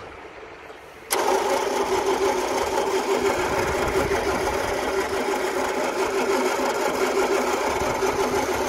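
Toyota Land Cruiser FJ45's F-series straight-six petrol engine cranked by its starter motor, cutting in suddenly about a second in and turning over steadily without firing. The engine turns fine, but a distributor problem keeps it from catching.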